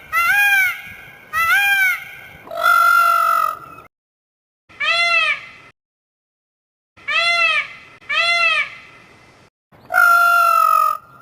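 A peacock calling: seven loud, ringing calls in small groups. Most are short calls that rise and fall in pitch. Two are longer and held level, one about two and a half seconds in and one near the end.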